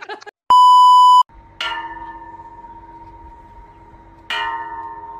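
A loud, steady electronic beep lasting under a second, like a censor bleep. It is followed by two bell-like struck notes about two and a half seconds apart, each ringing and fading slowly.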